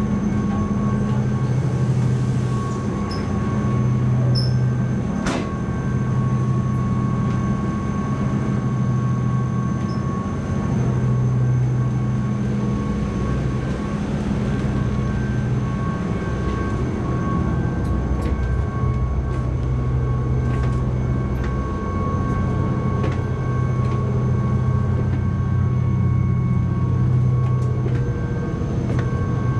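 The high-speed passenger ship's engines and machinery running, heard inside the passenger cabin: a steady low drone that swells and eases every few seconds, with a faint higher whine above it. One sharp click about five seconds in.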